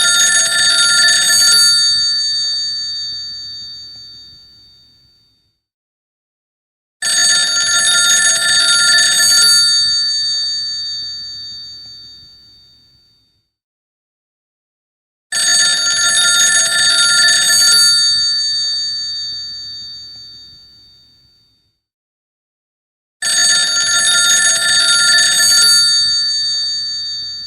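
Vintage rotary telephone's bell ringing in four rings about eight seconds apart, the first already under way. Each ring is a bright, loud bell trill for about two and a half seconds that then rings out and fades over a few seconds.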